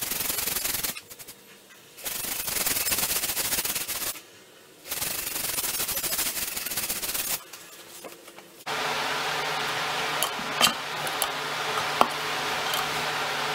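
Sandpaper rubbed by hand over a car's front bumper cover in quick back-and-forth strokes, three spells with short pauses, sanding down the old finish before painting. About nine seconds in it gives way to a steady low hum with a couple of light clicks.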